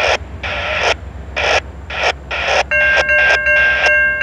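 Safetran Type 3 electronic crossing bell starting to ring about two-thirds of the way in, as the crossing activates: quick repeated strikes over a steady ringing tone. Underneath throughout are rhythmic bursts of noise.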